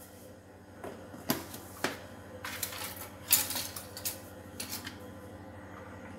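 A few scattered sharp clicks and taps of small objects being handled, over a steady low hum.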